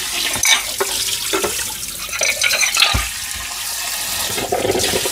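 Kitchen tap running into a small stainless saucepan of just-boiled eggs, cold water splashing over them to cool them for peeling. Metal pan and lid clank a few times.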